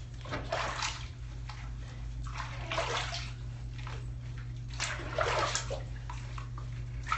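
Bathwater splashing and sloshing in a tub as a dog is washed, in bursts about every two seconds over a steady low hum.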